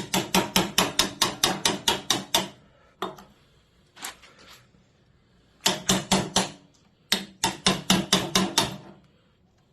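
Wood chisel being struck with quick repeated blows, about five a second, in three runs with a couple of single knocks between, chopping waste out of timber.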